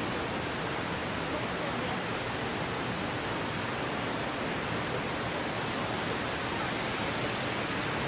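Large waterfall cascading over rock ledges: a steady, even rush of falling water.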